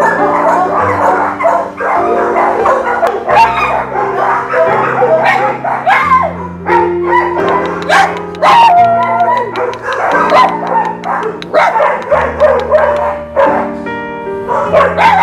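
Dogs barking and yipping in animal-shelter kennels over background music with slow, held bass notes.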